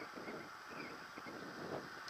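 Wind buffeting the microphone of a camera on a moving bicycle, an uneven rumble over a steady hiss, with the bike's road noise on asphalt.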